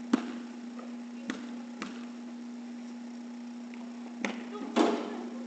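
A basketball bouncing on a hardwood gym floor, several sharp single bounces, then a longer, louder clatter near the end as the free throw reaches the basket. A steady low hum runs underneath.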